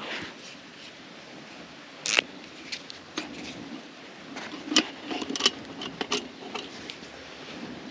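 A series of light, irregular clicks and knocks of small objects being handled, over a steady low hiss.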